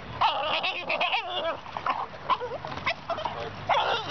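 Boston Terrier whining in a run of short, wavering, high-pitched cries.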